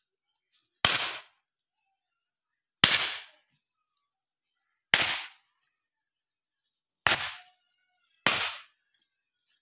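A dog barking five times, single sharp barks spaced about two seconds apart.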